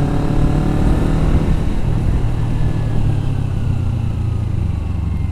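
Kawasaki Ninja 250FI's parallel-twin engine running under way. The note drops about a second and a half in, then its pitch falls slowly as the bike slows.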